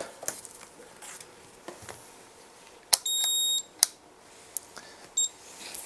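Keysight U1241B handheld multimeter beeping as its rotary function dial is turned: a high beep of under a second about three seconds in, and a short one near the end, among a few clicks of the dial.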